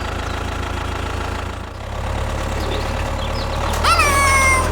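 Mini DIY tractor's small motor running steadily with a low drone. Near the end a loud high tone comes in, drops slightly in pitch and holds.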